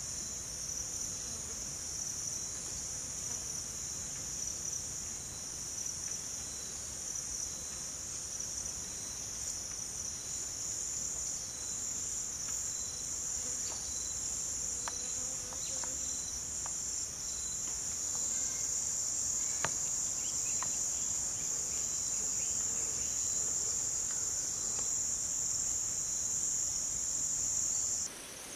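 Insects chirring in a steady, unbroken high-pitched chorus, which stops suddenly just before the end.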